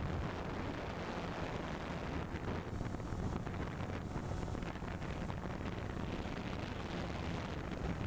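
DJI Phantom 2 quadcopter's motors and propellers humming steadily in flight, with wind noise on the onboard camera's microphone.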